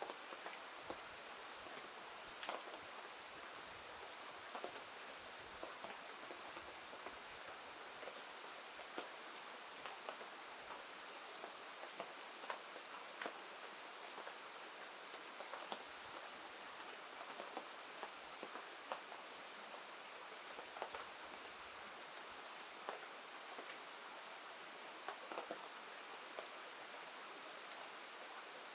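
Steady rain falling, with scattered sharp ticks of drops striking nearby surfaces.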